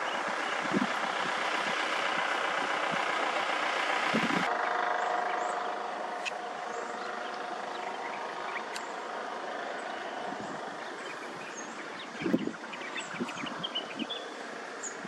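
Vehicle engine running steadily; the sound changes abruptly about four seconds in and then carries a steady hum. Faint bird chirps and a few soft thumps come near the end.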